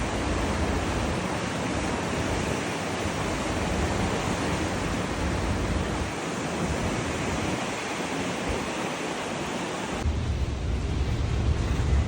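Strong wind blowing on the microphone: a steady, loud rushing noise with a heavy low rumble that grows stronger about ten seconds in.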